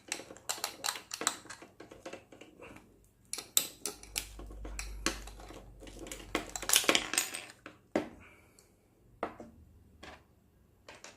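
Hair dryer being taken apart by hand: irregular clicks, knocks and rattles of its hard plastic housing and small parts, with a low rumble from handling in the middle.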